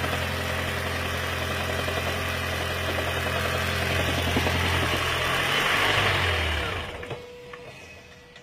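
Lexus CT 200h's 2ZR-FXE hybrid petrol engine running with a knock, which is put down to water leaking into the intake manifold. About six seconds in it drops in pitch and stops about a second later, leaving a few faint ticks.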